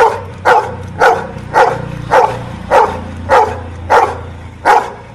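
Golden retriever barking in a steady series of short barks, about two a second, nine in all.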